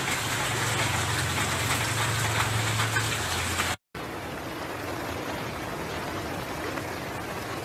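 Heavy rain falling as a dense, steady hiss with a low hum beneath it. About four seconds in it cuts off abruptly to a quieter, steady rushing noise.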